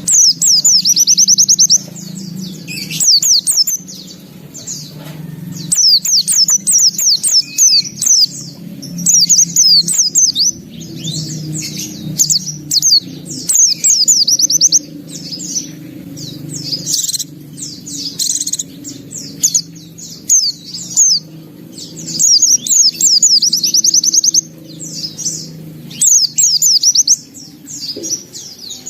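White-eye (pleci) singing hard: repeated bursts of fast, high trills and twitters, each a second or two long with short gaps between, over a steady low hum.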